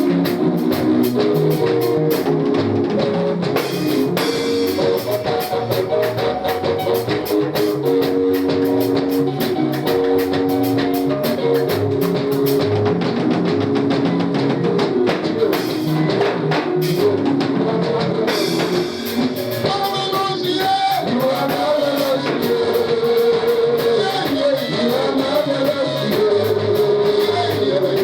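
Live church praise music with a drum kit and other instruments playing a fast steady beat, with some singing.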